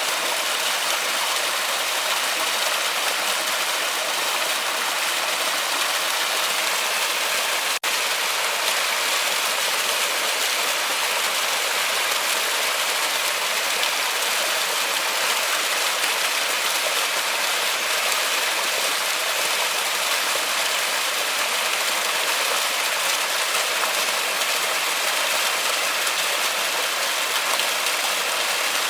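Waterfall in a forest, a steady unbroken hiss of falling and splashing water, with a momentary break in the sound about eight seconds in.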